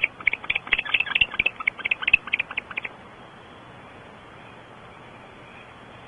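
Barn owl twittering: a rapid series of short, high chirps, about seven a second, that dies away about three seconds in, leaving a steady hiss.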